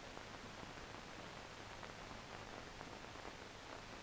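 Faint steady hiss with a low hum and a few faint crackles: the background noise of an old film soundtrack between narration lines.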